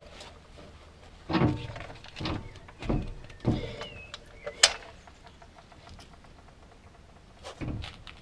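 Several dull knocks and clunks, roughly a second apart, with a short squeak among them, as the front hub and brake caliper assembly of an MGF is handled; two more knocks come near the end.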